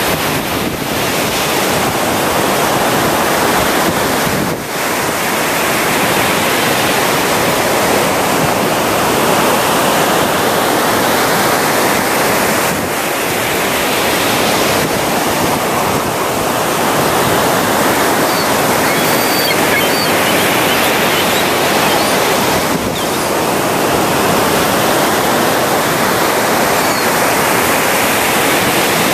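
Gulf of Mexico surf breaking on a sandy beach: a steady loud wash of waves that swells and eases every several seconds.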